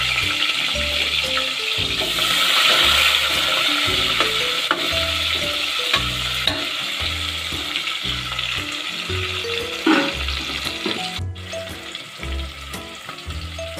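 Sliced onions sizzling as they fry in hot oil in a metal pot, with a ladle stirring and knocking against the pot a few times. A background music track plays underneath.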